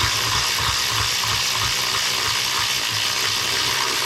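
Ratchet turning a bolt with a fast, continuous rattle of clicks, while a wrench holds the other side.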